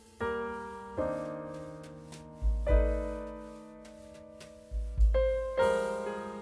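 Background film score: slow keyboard chords, each struck and left to fade, with two deep bass hits under them, about two and a half and five seconds in.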